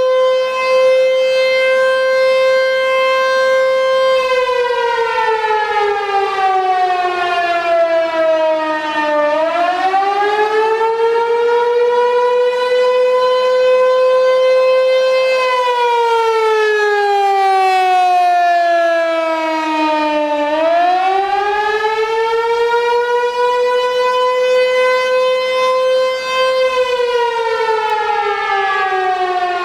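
T-128 outdoor warning siren sounding the wailing attack signal: its single tone holds steady, slides down over about five seconds, and winds back up, twice, then starts falling again near the end.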